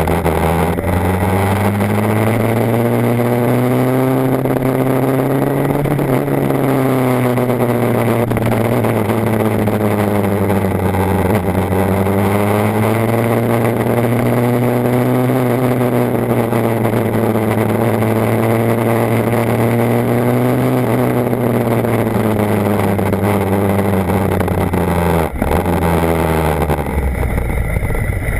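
BMW HP4's 999 cc inline-four engine running under way. Its pitch climbs, holds, then eases off, twice, over a steady rushing noise. Near the end the engine drops to a low rumble.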